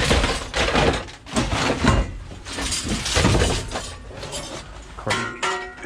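Scrap metal and appliances clattering and banging as they are shifted around in the back of a van, a rapid run of knocks and clanks.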